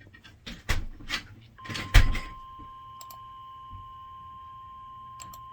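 A few knocks and clicks, then a steady single tone just above 1 kHz starts about a second and a half in and holds: a NOAA Weather Radio 1050 Hz warning alarm tone, which marks the start of a weather alert. A few light clicks sound over the tone.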